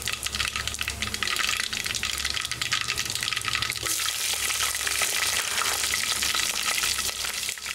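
Whole spices (cumin and mustard seeds, bay leaves, garam masala) sizzling and crackling in hot ghee and oil in a thick-bottomed pot. About four seconds in, green chilies are dropped into the fat and the sizzling gets louder.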